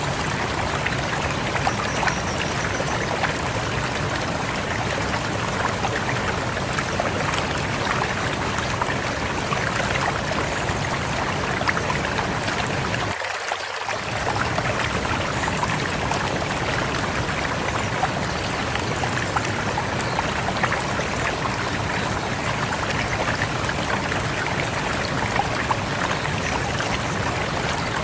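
Rushing river water flowing steadily, a dense, even rush. About halfway through, the low rumble drops out for half a second.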